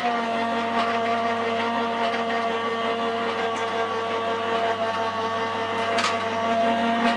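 Crafter's Companion Gemini electric die-cutting machine running, its motor drawing a metal cutting-plate sandwich through the rollers with a steady whirring hum.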